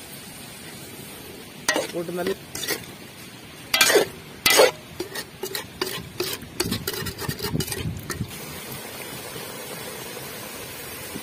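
Metal ladle stirring and scraping in an aluminium pot of watery eel gravy, with a run of sharp clanks against the pot side, the loudest two about four seconds in. A steady hiss of the simmering gravy runs underneath and is left alone once the stirring stops.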